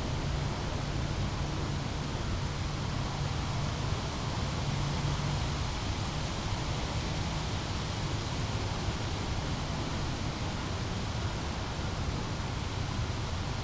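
Small brook flowing and babbling, a steady rushing of water with no change.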